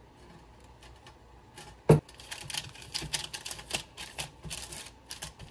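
A single sharp knock about two seconds in, then butter paper crinkling and rustling in a metal baking tin as a hand rubs oil over it, in quick, uneven scratchy crackles.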